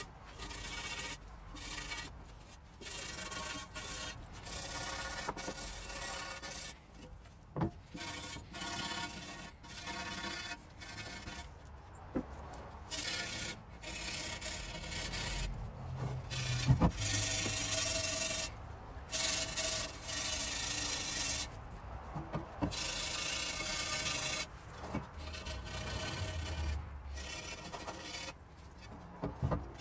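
Steel wool scrubbing the wet face of a Griswold cast iron griddle in repeated rasping strokes with short pauses between them, scouring off the rust residue left after electrolysis. A few sharp knocks come in between, the loudest about halfway through.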